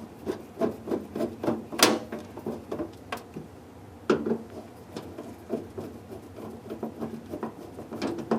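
Screws being fitted and tightened into the refrigerator's plastic compartment cover: irregular small clicks and taps of the tool and screws, with a couple of sharper knocks about two seconds in and about four seconds in.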